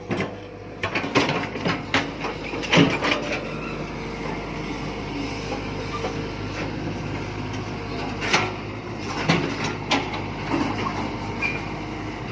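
Diesel engine of an earthmoving machine running steadily, with sharp metallic knocks and clatters from the working machine, several in the first few seconds and a few more about two-thirds of the way through.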